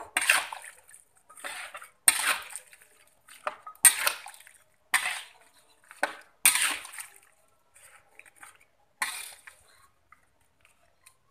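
Metal spatula scraping and clanking against a metal wok as chunks of meat in a little broth are stirred, in irregular strokes about once a second, dying away about two seconds before the end.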